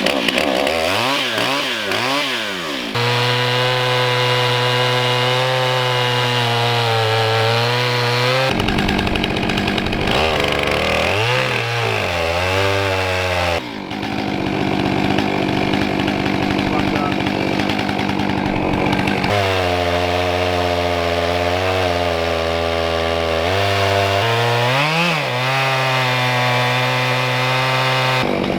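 Stihl MS 661 two-stroke chainsaw on an Alaskan chainsaw mill, loud and running hard: it revs up and down a few times at the start, then holds a steady pitch, with its pitch dipping and climbing again several times.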